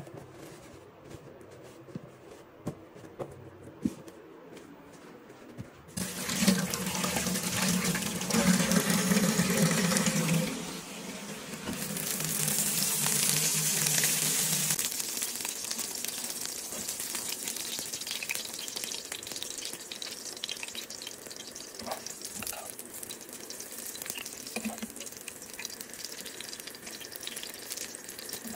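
A few soft handling clicks, then water running from a tap for about four seconds as leftover roti is wetted. The wet roti then hisses in a hot pan of oil or ghee, loudest at first and settling into a steady sizzle with light crackles.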